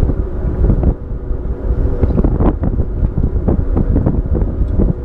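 A boat's motor running steadily under way, with wind buffeting the microphone.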